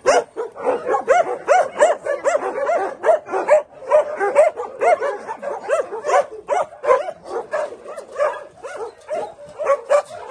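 Several dogs barking and yelping together at a fence, a dense, unbroken run of short rise-and-fall yelps, several a second.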